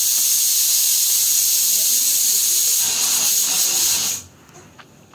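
A loud, steady, high-pitched hiss that cuts off suddenly about four seconds in.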